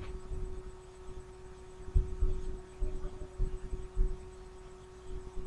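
Several dull, low thumps in an irregular run, like footsteps or knocks on a floor, over a steady electrical hum.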